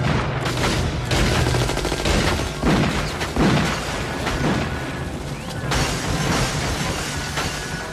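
Sustained rapid gunfire, many shots in quick succession, loudest a little before the middle.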